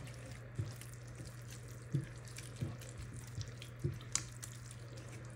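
Onions and tomato paste frying in oil in a pan, with a spoon knocking against the pan every second or so as it is stirred, over a steady low hum.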